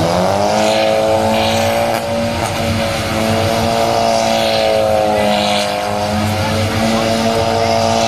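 Remote-control model car's engine running at high revs with a steady high-pitched whine. Its pitch rises just at the start, then holds. Short bursts of hiss come and go above it.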